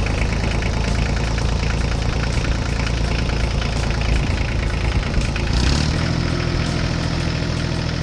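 Tractor engine running loudly, settling about six seconds in to a steadier, even idle.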